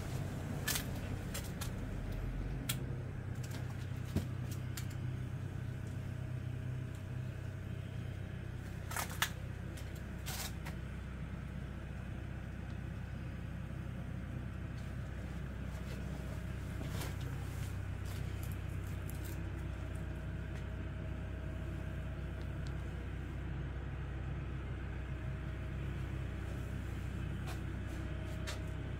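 Rice-milling machinery running with a steady low drone and a few sharp clicks scattered through it.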